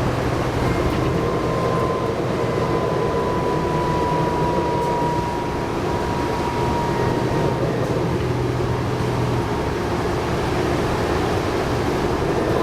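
Inside a New Flyer D60LFR articulated diesel bus under way: steady Cummins ISL9 engine hum and road noise, with a thin high driveline whine that slowly falls in pitch.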